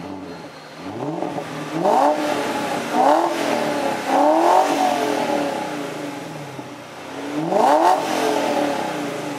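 BMW E39 540i's 4.4-litre V8 revved through an exhaust with the two rear mufflers removed. It gives three quick revs about a second apart, falls back toward idle for a few seconds, then revs once more near the end.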